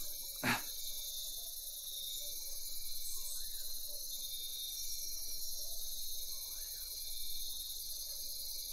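Steady, high-pitched chorus of chirping insects, with a short falling sweep about half a second in.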